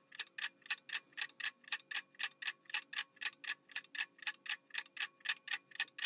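Clock-ticking sound effect counting down the time to answer, a steady run of sharp ticks at about five a second.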